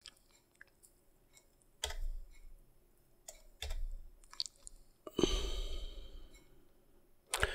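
Faint computer keyboard keystrokes: a few separate key presses, each a short click with a soft thump, spaced a second or two apart. A short breathy noise comes in about halfway through.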